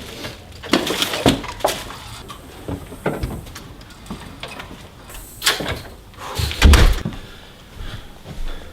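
Irregular knocks and clunks, with a heavier low thump about six and a half seconds in.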